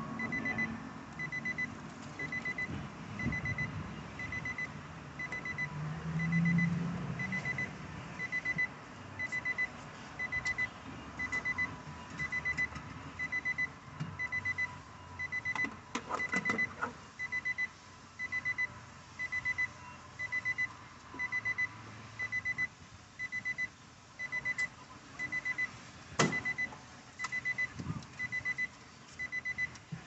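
Car's warning chime beeping steadily, about three beeps every two seconds, with a few sharp clicks around the middle.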